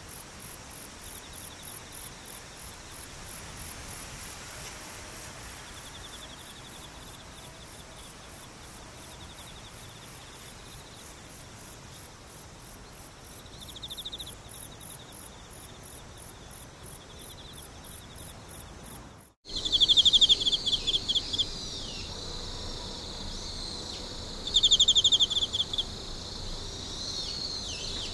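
Night insects chirping: a high, regular chirp about two to three times a second over fainter trilling. About two-thirds of the way through it cuts abruptly to a different insect chorus with louder pulsing trills, twice swelling briefly, and quick chirping calls.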